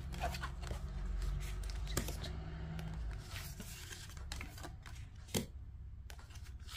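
Linen-finish tarot cards being lifted, slid and laid back down on the piles: a few scattered soft card clicks, the sharpest about five seconds in.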